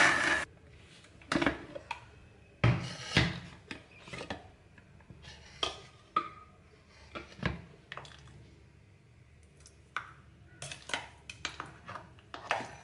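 A Panasonic mixer grinder's motor cuts off about half a second in. Irregular clinks and knocks follow from a spoon against the steel grinder jar and a ceramic bowl as thick smoothie is scooped out.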